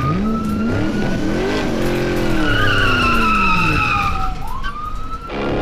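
A vehicle engine revving up and then winding down, with a high whine that slides down in pitch and rises again near the end.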